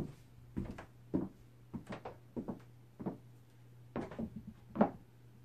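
Footsteps as light thuds about every half second, the loudest at the very start and again near the end, over a steady low hum.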